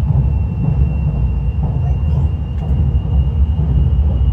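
Steady low rumble with a thin, steady high-pitched tone over it.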